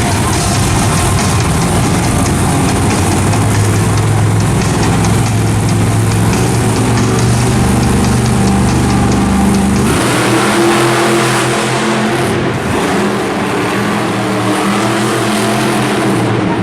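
Monster truck engines running loud, with a change in the engine note about ten seconds in as the deep low hum gives way to higher, layered tones.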